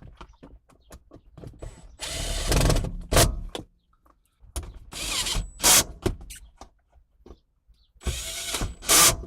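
Power drill driving screws to reassemble a car's center console, in three short runs of about a second each. Each run ends with a sharp click.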